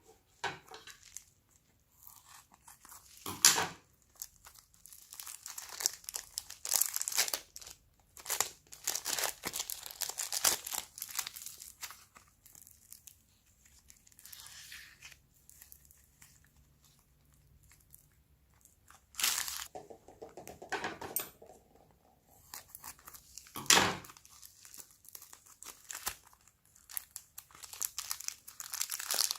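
Slime being squished, stretched and folded by hand, making irregular crackly, crinkling squishes with a couple of sharper pops.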